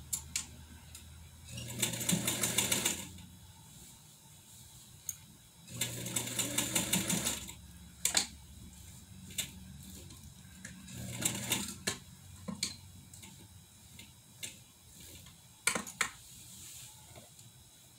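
1957 Atlas straight-stitch sewing machine stitching in three short runs, the longest about two seconds, with a rapid even stitch rhythm. Scattered sharp clicks come between the runs.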